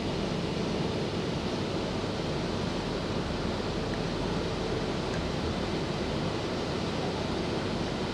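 Steady running noise of a Stockholm metro C20 train moving along the track, heard from inside the car: an even rumble with no breaks.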